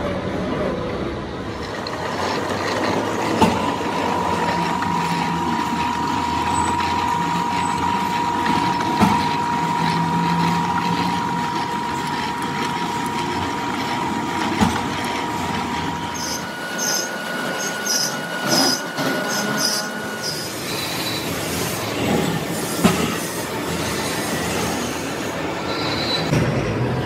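Gear hobbing machine running, its hob turning in the teeth of a large cast spur gear: a steady metallic machine noise with a steady high squeal that stops about two-thirds of the way through, and a few sharp clicks.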